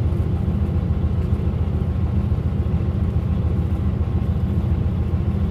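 Heavy diesel engines running with a steady low rumble and a fast, even pulse.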